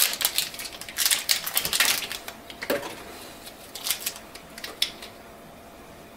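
Crinkling and crackling of the plastic wrapper on an inkjet ink cartridge being torn and pulled off by hand, dense for the first two seconds, then a few scattered crackles, dying away near the end.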